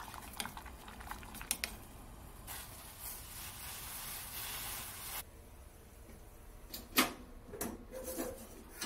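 Chopsticks clicking against a stainless steel pot as ramen noodles are stirred in boiling water. Then the steady hiss of the pot at a hard, foaming boil, which cuts off abruptly. Near the end comes a sharp knock and a few lighter clinks.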